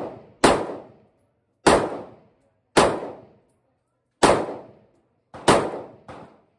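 Omni Maxx AR-15 pistol firing slow semi-automatic shots, about six roughly a second apart, each sharp crack followed by a short echo. A quieter shot comes near the end.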